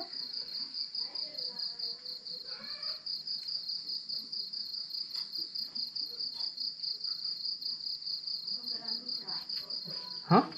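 Crickets chirping in a steady, pulsing high-pitched chorus. Near the end there is a short, loud rising squeak.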